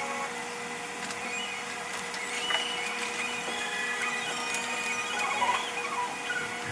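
Everyday work sounds sped up about five times: a steady hum with scattered quick clicks and short high chirps.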